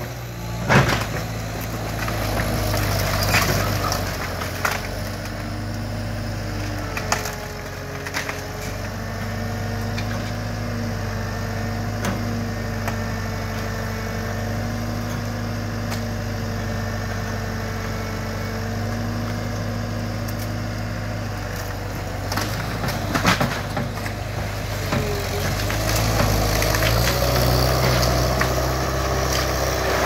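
Skid steer's diesel engine running steadily under work, with scattered knocks and crunches of demolition debris; the engine grows louder near the end.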